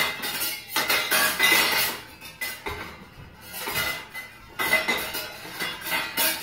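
Pans and cooking utensils clattering and clinking in quick runs of knocks. They ease off about two seconds in and pick up again near the end.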